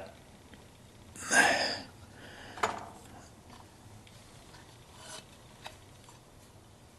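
A brief rubbing scrape a little past a second in, then a single sharp click and a few faint ticks: hands and tools handling parts.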